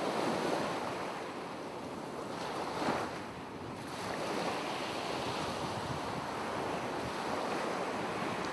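Ocean surf sound effect: a steady wash of waves rising and falling, with a louder surge about three seconds in.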